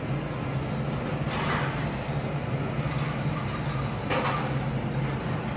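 Chef's knife cutting a seared wagyu steak on a steel teppanyaki griddle, the blade scraping across the plate twice, about a second and a half in and again about four seconds in, over a steady low hum.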